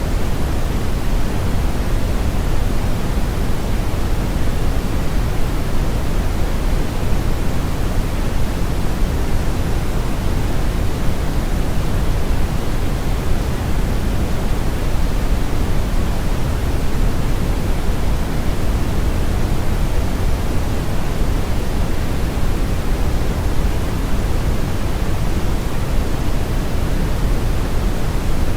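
Synthetic brown noise blended with white noise: a steady, even rush that is heaviest in the low end and thins toward the highs, with no change over time.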